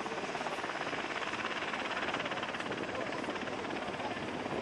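Steady aircraft noise with a fast, even beating, of the kind a helicopter's rotor makes, swelling slightly about two seconds in.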